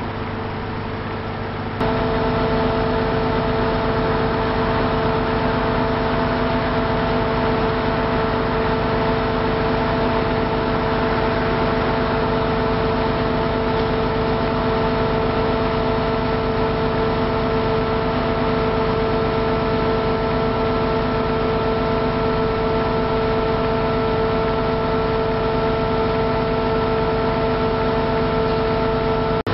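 Heavy diesel engine of a crawler crane running steadily, with a constant machine whine over the rumble. About two seconds in it suddenly gets louder as a higher whine joins in, then holds steady.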